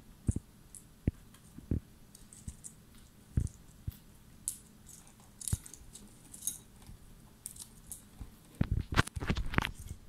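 Cockatiel eating from a ceramic bowl: irregular beak taps and knocks on the bowl, mixed with small crunching clicks. A quick run of louder knocks comes near the end.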